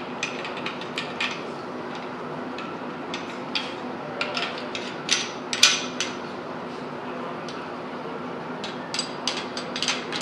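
Steel parts of an M1 Garand's barreled receiver clicking and clinking as they are handled by hand: irregular sharp metallic clicks, the loudest pair about five to six seconds in, and a quick run of them near the end.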